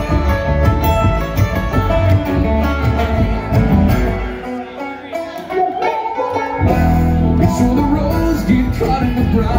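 Bluegrass string band playing live: banjo, acoustic guitar and upright bass. About halfway through, the bass drops out for roughly two seconds, leaving the banjo and guitar, then the full band comes back in.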